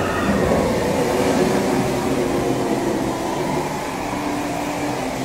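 Steady rumbling, hissing ambience aboard a boat dark ride, with a few faint held low tones underneath.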